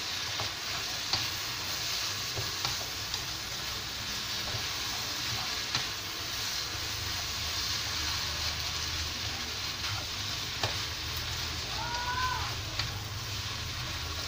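Noodles and vegetables sizzling in a hot wok as they are stir-fried dry, with no water added, while a spatula tosses them, clicking and scraping against the pan now and then.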